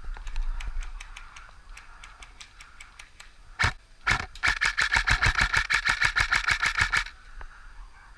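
Airsoft electric gun (AEG) firing: a single sharp shot about three and a half seconds in, then a full-auto burst of about ten shots a second lasting roughly two and a half seconds, with faint scattered clicks of other shots before it.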